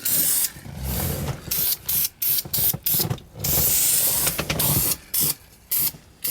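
Aerosol spray paint can hissing in a series of short bursts, with one longer spray of about a second and a half near the middle, as a final coat is fogged onto a car dashboard.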